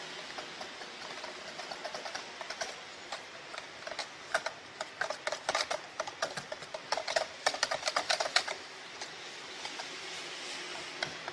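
Wire whisk beating ice cream powder and water in a plastic jug: a fast, uneven run of clicks and taps as the wires knock against the jug's sides, dying away a few seconds before the end.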